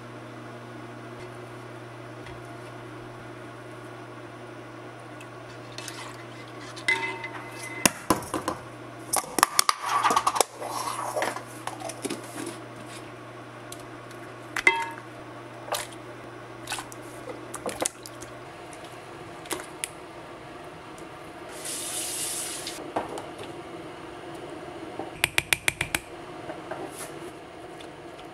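Kitchen work: dishes and utensils clinking and knocking, with a short burst of running tap water about two-thirds of the way through and a quick run of clicks near the end. A steady low hum stops a little past halfway.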